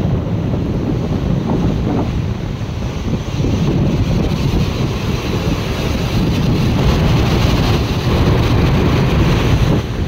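Sea surf breaking and washing over rocks and sand, with wind buffeting the microphone in a steady low rumble. The hiss of the surf grows louder a few seconds in.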